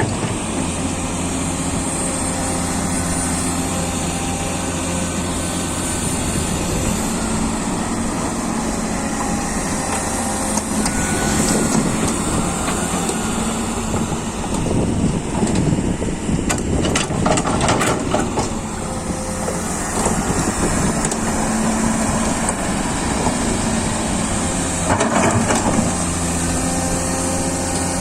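Komatsu PC200 excavator's diesel engine running steadily, its pitch rising and falling under hydraulic load while digging and loading soil into a dump truck. Clattering comes through about two-thirds of the way in and again near the end.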